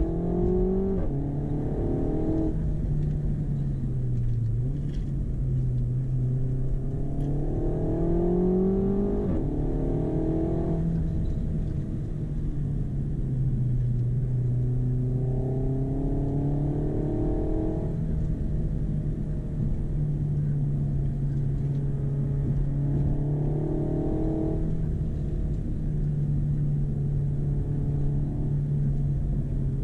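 Renault Megane RS Cup's 1.8-litre turbocharged four-cylinder engine, heard from inside the cabin while driving, holding a steady note and then rising in pitch under acceleration about four times, each rise cutting off abruptly.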